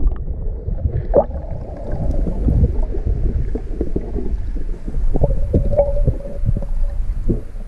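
Underwater sound heard through an action camera's waterproof housing: a muffled low rumble with scattered knocks and clicks as the diver moves along the river bottom. A thin held tone comes in for a couple of seconds about two-thirds of the way through.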